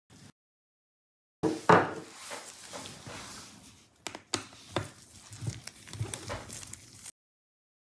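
A thin pry tool scraping and clicking against the plastic battery edge and cable-routing clips inside an opened laptop, with irregular crinkling scrapes and several sharp clicks. It starts after about a second and a half and stops shortly before the end.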